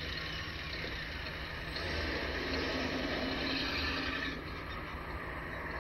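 Police patrol car driving off, with steady engine and road noise.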